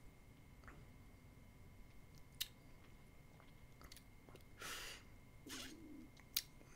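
Near silence with faint mouth sounds from a man tasting whisky: two small lip-smacking clicks and two short breaths a little past halfway.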